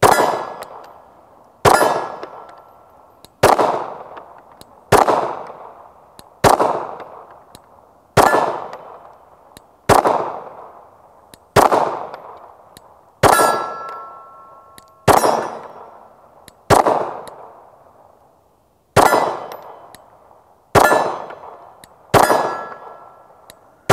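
A Glock 19 9mm pistol fired in slow, steady strings of single shots, about one every second and a half to two seconds, some fourteen in all. Each shot is followed by the ringing clang of a steel target being hit.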